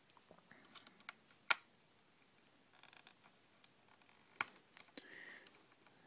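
Faint scraping and a few sharp clicks of a screwdriver working small screws out of a laptop's plastic hard-drive bay. The two loudest clicks come about a second and a half in and just after four seconds.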